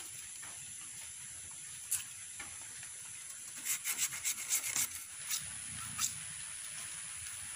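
Plastic straw rubbing and pulling against split bamboo slats as they are lashed together for a bamboo fish trap, with light clicks and taps of the bamboo strips: one single click, then a quick run of about ten clicks around the middle and two more just after.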